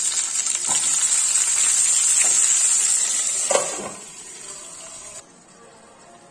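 Pointed gourd pieces sizzling loudly in hot mustard oil in a frying pan, with a few light knocks as pieces go in. About three and a half seconds in, a glass lid clanks onto the pan and the sizzling turns muffled and much quieter.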